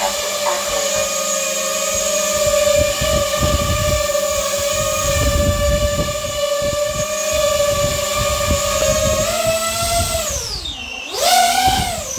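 FPV quadcopter's brushless motors heard in a slowed-down replay of a hover: a steady pitched whistle with several overtones over irregular low thumps of prop wash. About ten seconds in, the pitch sweeps sharply down and climbs back up as the throttle changes.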